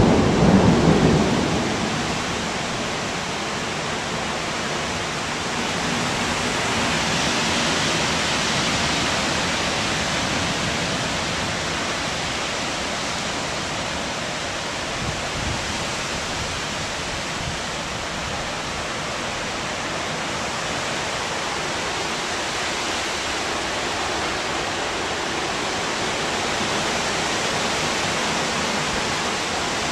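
Heavy rain and gusting wind of a severe thunderstorm, a steady rushing noise. A loud low rumble of thunder comes right at the start and fades within about two seconds.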